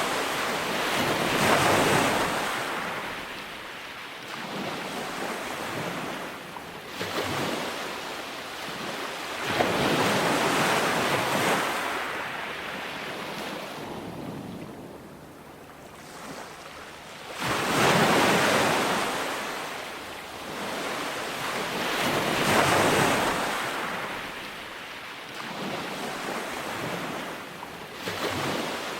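Ocean waves breaking and washing up on a beach, the surf swelling and fading in repeated surges a few seconds apart, with a quieter lull about halfway through.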